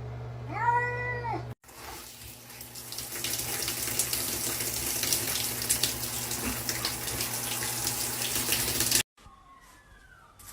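A cat meows once, a single call that rises and falls. Then water runs steadily, with small splashes, for about seven seconds and cuts off suddenly.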